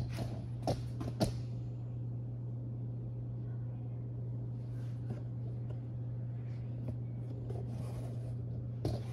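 Light taps and rustles as glue-coated leather pieces and a foam brush are handled, sharpest three times in the first second or so and again near the end, over a steady low background hum.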